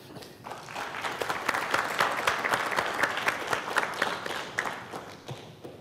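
Audience applauding: dense clapping that swells over the first two seconds and dies away near the end.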